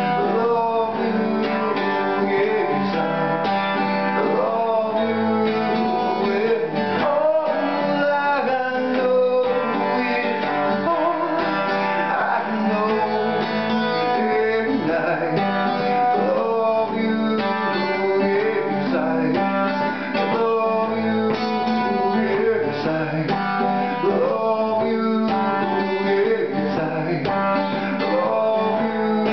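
Steel-string acoustic guitar strummed steadily, chords played in a continuous rhythm.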